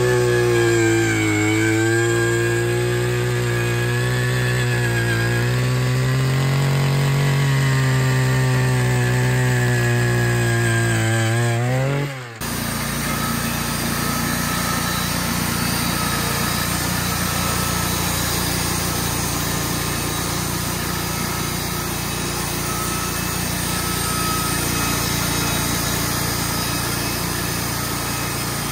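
Engine-driven saw running hard, its engine note sagging under load about a second in and then recovering. About twelve seconds in it cuts off abruptly to a rougher, steady engine noise.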